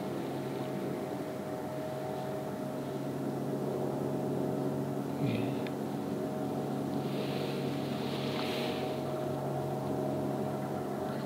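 Steady engine drone with a constant hum, and a single knock about five seconds in.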